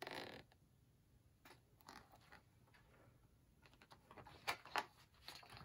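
Near silence with faint rustles and light clicks of a picture book's pages being handled and turned.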